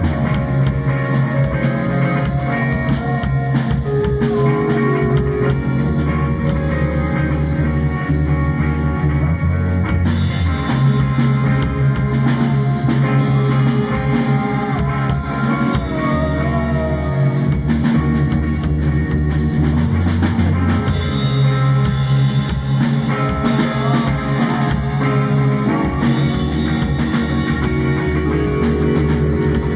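Rock-style jam over a sustained drone: low held tones that shift every few seconds, with guitar lines wavering above and a drum kit keeping a steady beat.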